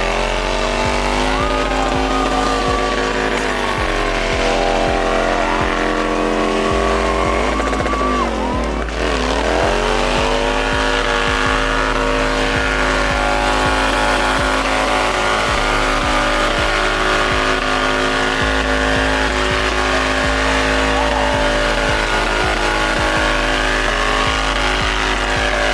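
A stunt vehicle's engine revving hard, its pitch swinging up and down, with a deep drop and climb back about nine seconds in, over background music with a heavy bass.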